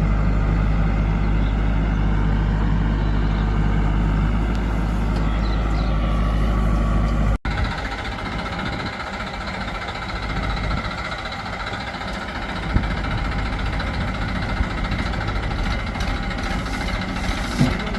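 Heavy diesel engine of a backhoe loader or tractor running steadily. About seven seconds in the sound cuts abruptly to a quieter, rougher engine noise, with a couple of sharp knocks near the end.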